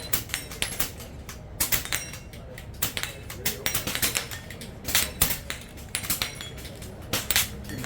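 Rapid, irregular airgun shots from several shooters at once, mixed with sharp metallic pings of pellets striking steel silhouette targets, some pings ringing briefly.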